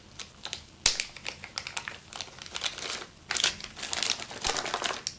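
Plastic packaging crinkling as parts are handled in a kit box, in irregular bursts: a sharp crackle about a second in, then a louder, denser stretch of crinkling in the second half.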